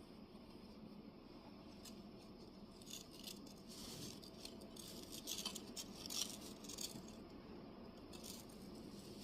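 Clay tablet-weaving cards clicking and rattling against one another as the pack is turned: a flurry of light clacks in the middle, then a few single clicks near the end.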